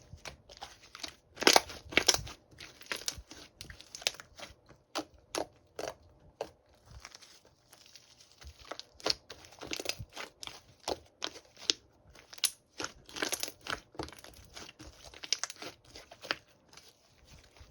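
Irregular crunching and crackling, sharp clicks coming several times a second with short pauses between.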